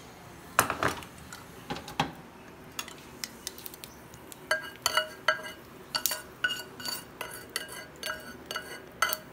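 Metal spoon knocking and scraping against a small saucepan and a china plate as the tempered spice oil is scraped out onto mashed potato. A few sharp knocks come in the first two seconds, and from about halfway in there is a run of ringing clinks, about three a second.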